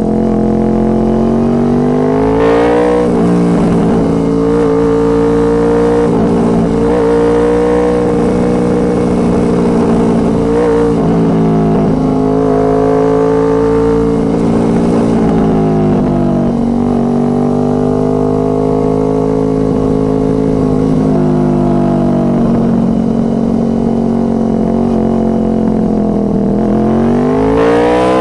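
Honda VFR800 Interceptor's V4 engine through a Two Brothers Racing aftermarket exhaust, running under load while ridden. The revs rise and fall throughout and climb sharply near the end.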